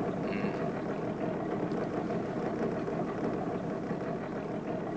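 Boat engine running steadily in gear, pushing the boat forward.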